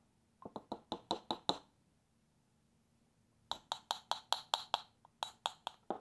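Rapid light metallic taps, about five a second, in three runs separated by short pauses, with the loudest tap at the very end.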